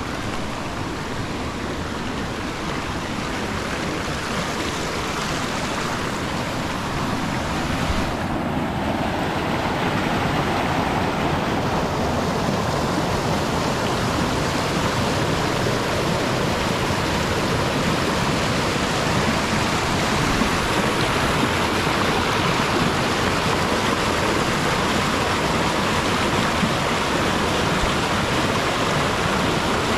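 Steady rush of water falling down a cascading waterfall, getting a little louder about eight seconds in.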